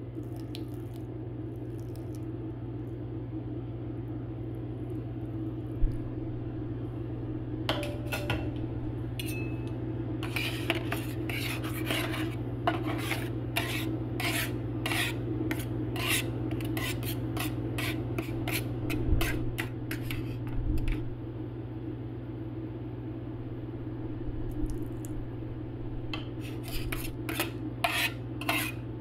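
Two metal spatulas tapping and scraping on a steel cold plate, chopping and spreading freezing beer into rolled ice cream. The strikes begin about eight seconds in, come in quick runs, pause, and start again near the end, over a steady low hum.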